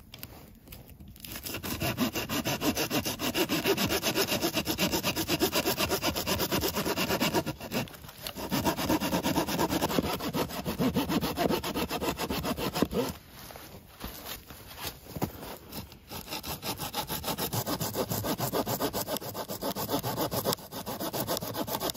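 Hand saw cutting through a rotten log in steady back-and-forth strokes, stopping briefly a few times.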